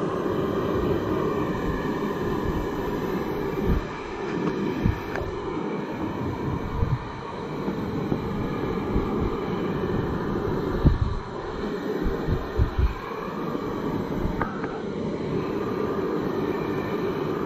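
Handheld electric hair dryer running steadily, blowing on a wet dog's coat, with a few brief low thumps through the middle.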